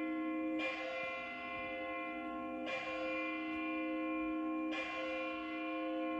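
Church tower clock striking six o'clock on a single bell: three even strokes about two seconds apart, each ringing on into the next.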